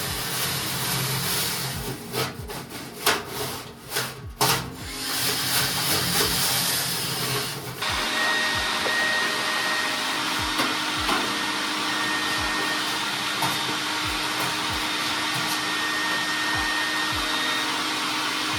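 An electric motor running steadily with a constant whine and a faint regular ticking, after about eight seconds of stop-start running and knocking.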